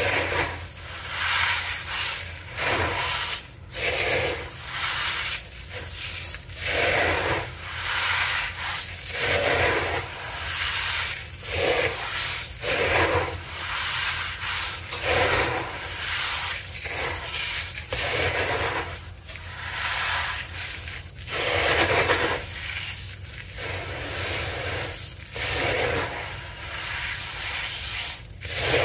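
Crispy dyed cornstarch crumbles crunching and grating under hands rubbing and sweeping through them, a gritty hiss that swells and fades in repeated strokes about once a second.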